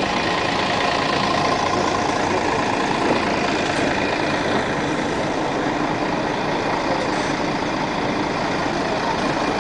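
Steady street noise at a tram and bus stop, dominated by a city bus engine running, with tram noise mixed in.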